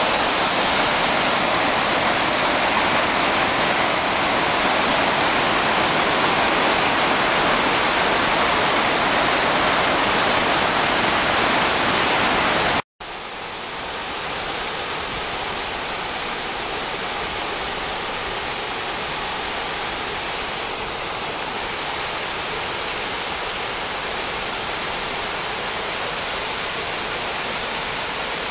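Creek water rushing through boulder rapids and small cascades: a steady, even rush of white water. It cuts out for an instant about halfway, then comes back somewhat softer and duller.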